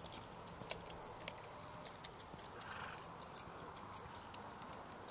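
Hoofbeats of an American Quarter Horse gelding loping on a soft dirt arena: a quick, uneven run of light strikes, several a second.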